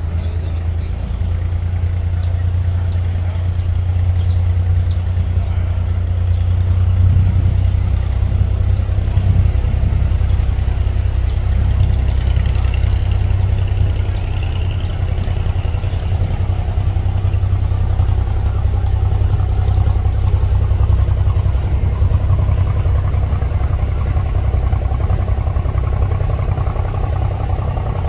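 Boat diesel engines running with a steady low drone, a little louder for a few seconds near the start of the second quarter.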